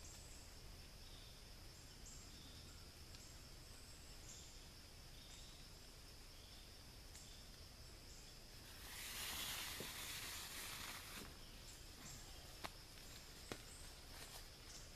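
Quiet woodland ambience: a steady high insect drone with repeated short high chirps. About two-thirds through comes a couple of seconds of rustling, followed by a few faint clicks.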